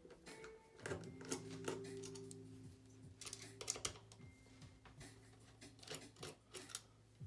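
Small sharp clicks and scrapes of a precision screwdriver turning out tiny screws in a Mac mini A1347's metal grille, metal on metal, in several short runs. Soft background music with held notes plays underneath.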